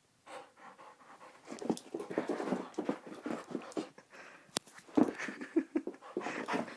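Dog panting rapidly and excitedly close to the microphone, starting about a second and a half in, with a sharp click a little past the middle.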